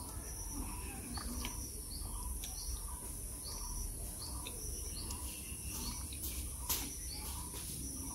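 Rural outdoor ambience: a steady high-pitched insect drone with short bird chirps about once a second, and one sharp click about two-thirds of the way through.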